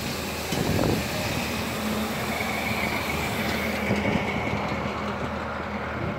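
Heavy machinery running steadily while a steel gas pipeline is pulled back into a directionally drilled bore, with a faint thin squeal for a couple of seconds in the middle.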